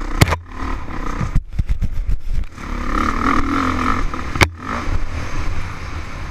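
Dirt bike engine running as it is ridden along a rough trail, with sharp knocks and clattering: one hit about a quarter second in, a rattle of knocks around the second and a half to two and a half second mark, and the loudest hit near four and a half seconds.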